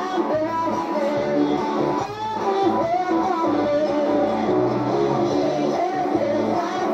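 A song with strummed guitar accompaniment, two girls singing the melody into microphones.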